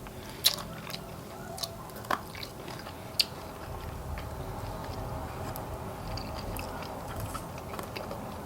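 Close-up chewing of deep-fried chicken wings, with a few sharp crunches about half a second, two seconds and three seconds in, over a low steady hum.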